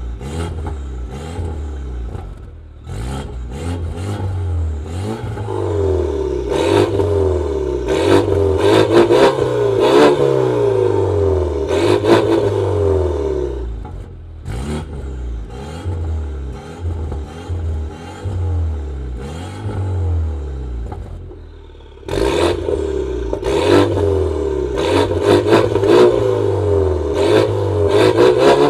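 BMW 520i's two-litre engine revved repeatedly through a straight-through stainless exhaust with no catalytic converter or resonator, the note climbing and dropping back with each blip, with sharp cracks at the peaks. It settles lower for several seconds in the middle, then revs hard again.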